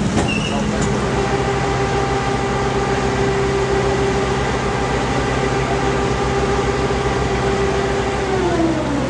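Junkar vehicle ferry's engine running with a steady hum and an even low pulse; near the end its pitch falls as the engine is throttled back.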